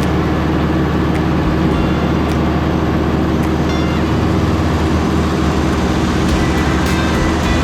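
Vehicle running steadily on the road: a constant engine drone with road noise and a few light rattles.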